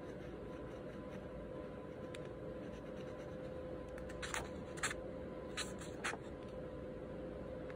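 A pen scratching on paper in a handful of short strokes between about four and six seconds in, over a steady faint hum.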